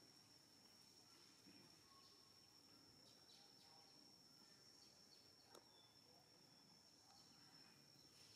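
Near silence: faint outdoor background with a steady high-pitched whine, a few faint chirps and one small click about five and a half seconds in.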